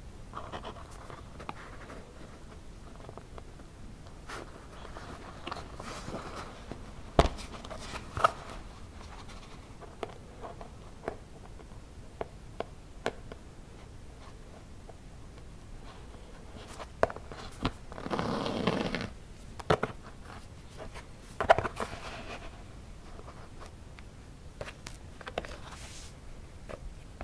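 Hand-sewing a leather knee patch onto waxed cotton pants with whip stitches: nylon dental-floss thread drawn through the leather and fabric in short rasps, among scattered small clicks and rustles of handling. The longest rasp, about a second, comes about two-thirds of the way through.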